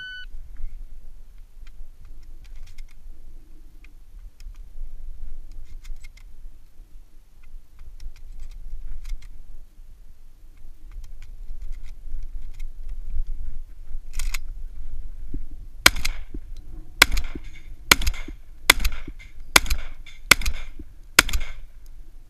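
A shot-timer beep at the start, then faint clicks and handling noise while moving. In the last third, a Remington 1100 semi-automatic shotgun fires eight shots, roughly one a second.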